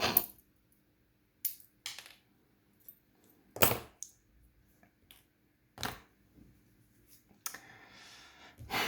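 Small metal lock parts and tools clicking and tapping against each other and the work surface as a lock cylinder is handled during reassembly: half a dozen separate sharp clicks, the loudest about three and a half seconds in. Near the end comes a rushing breath or sigh.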